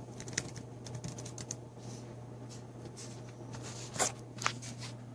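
Keys on a Dell Latitude 3540 laptop keyboard being typed, likely a login password: scattered light clicks, with two louder clacks about four seconds in, over a low steady hum.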